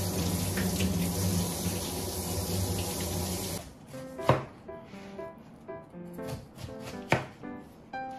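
Tap water running onto a pineapple and into a stainless steel sink, cutting off suddenly about three and a half seconds in. Then a knife chops through the pineapple onto a cutting board twice, about three seconds apart, over background music.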